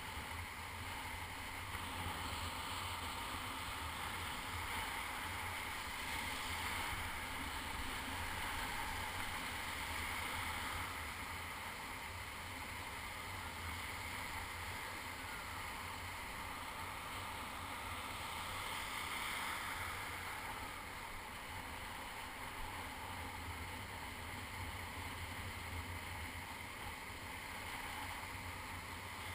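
Sea surf washing and breaking in shallow water, a steady rushing wash that swells and eases gently, with a low wind rumble on the microphone underneath.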